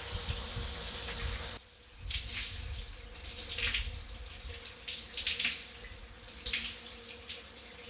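Water running from a tap, cutting off suddenly about a second and a half in, followed by irregular splashing of water in a sink.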